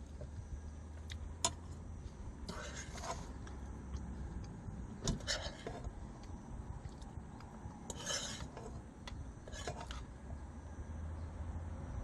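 Eating utensils scraping against dishes: several short scrapes a couple of seconds apart over a low steady hum.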